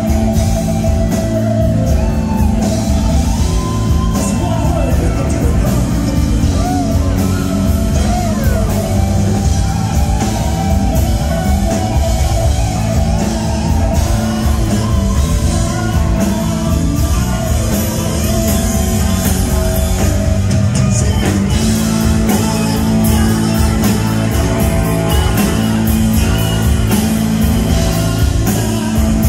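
Live rock band playing loudly through a PA: electric guitar, drums and keyboards, with a lead singer over them.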